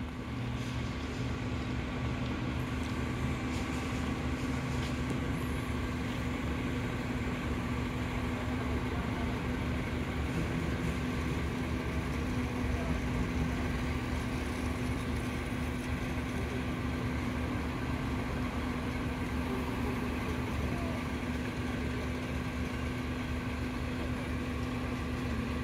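Diesel engine of a Mitsubishi Fuso Aero King double-decker coach idling steadily while the coach stands stationary, with a constant low hum.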